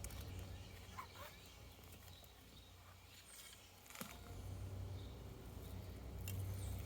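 Faint rustling and a few soft clicks of hands digging garlic out of garden soil, over a low steady rumble.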